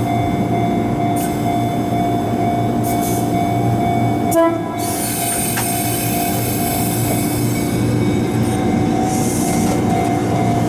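Electric train running on the Fujikyuko Line, with a steady high-pitched tone held over the rumble of the wheels. There is a brief jolt in the tone about four seconds in.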